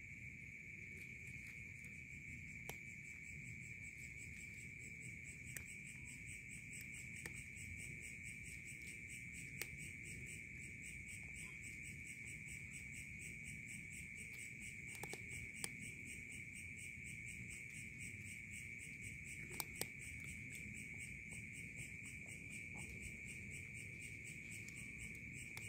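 Crickets chirring in a steady, unbroken night chorus. Scattered sharp clicks run through it as the cat crunches dry kibble, with a couple of louder ones about 15 and 20 seconds in.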